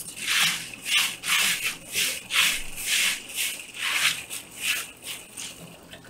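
Dried Odawa beans swished by hand in a stainless steel colander under running tap water, rattling in repeated surges about twice a second that weaken toward the end.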